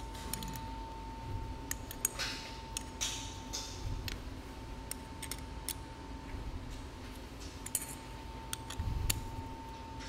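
Light metallic clicks, taps and short scrapes as small screws and the steel joystick bracket are worked on a cast-iron hydraulic control valve, over a faint steady high tone.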